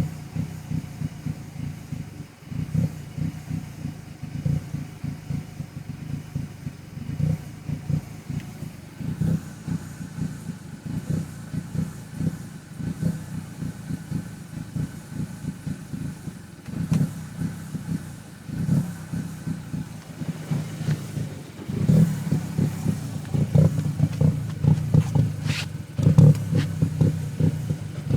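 2006 Audi A4 2.0T's turbocharged four-cylinder engine idling roughly, with an uneven, lumpy beat that grows a little louder over the last several seconds. The rough idle comes from a large vacuum leak at a faulty intake manifold gasket.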